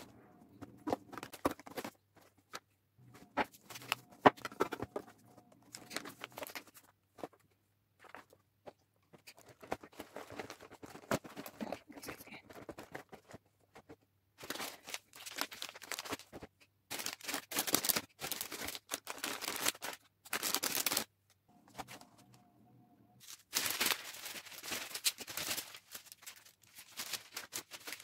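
Tins and grocery boxes being handled and set into a wicker basket, then clear cellophane wrap crinkling in long loud stretches as it is gathered around the filled hamper.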